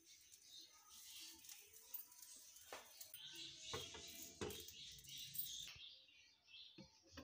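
Faint sizzling and crackling of bread pizzas cooking in a hot, lightly oiled frying pan, with a few knocks as a glass lid is set on the pan about three to four seconds in.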